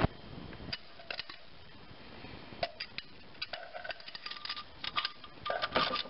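Scattered light metallic clinks and taps as the adjustable timing chain guide is worked into place against the chain in the timing chest of a GM 2.2L Ecotec engine. The taps come more often in the second half.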